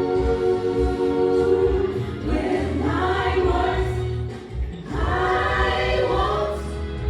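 Gospel choir singing sustained chords in long phrases, with a brief break between phrases about four and a half seconds in.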